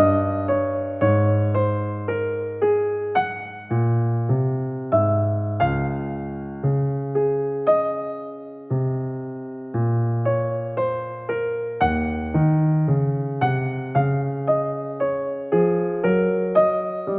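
Background music: a slow, gentle solo piano piece, notes struck one after another and left to ring and fade.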